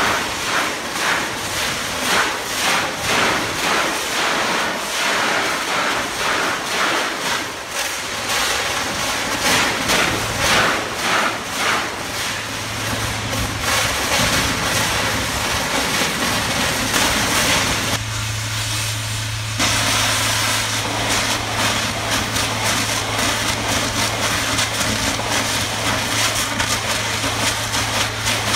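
A high-pressure water jet demolishing the concrete edge of a road bridge (hydrodemolition): a loud, harsh hissing racket that pulses unevenly, with a steady low hum coming in about halfway.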